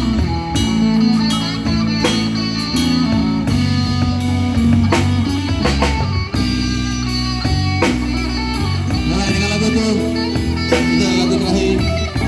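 Live rock band playing through amplifiers: electric guitars, bass guitar and a drum kit keeping a steady beat, with a male singer singing into a microphone.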